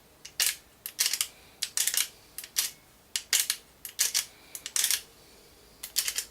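Sharp mechanical clicks and clacks, more than a dozen in irregular small clusters: the BSR record-player deck's speed-change mechanism being worked back and forth by hand through its positions.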